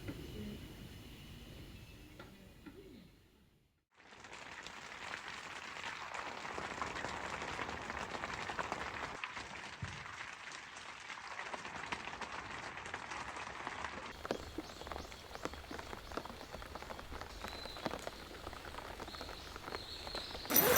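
Steady rain falling, a soft even hiss with many small drop ticks, which sets in after a brief silence about four seconds in.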